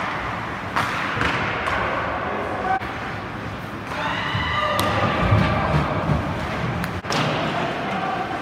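Ice hockey play in a rink: sharp knocks of the puck and sticks against the boards and ice, about three of them, over the rink's steady din. A shout rises over it about halfway through.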